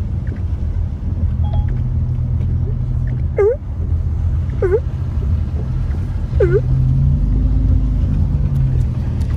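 Car driving on a wet road, heard from inside the cabin: a steady low rumble of engine and tyres. Three short squeaks, about a second and a half apart, dip and rise in pitch as the windshield wipers sweep the glass.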